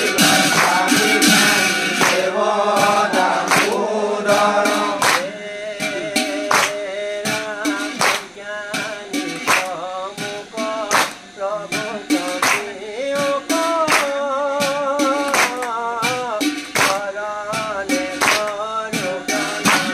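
Assamese naam-prasanga devotional singing: voices chanting a wavering melody, with sharp percussive strikes keeping time.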